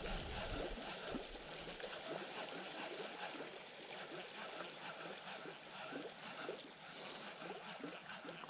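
Faint water lapping and gurgling against a kayak hull, in small irregular splashes.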